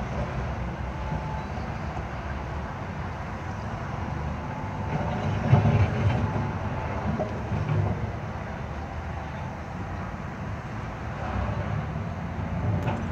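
Wheeled excavator's diesel engine running steadily as its bucket works the broken-up asphalt road surface. There are louder, rougher moments about five to six seconds in and again near eight seconds.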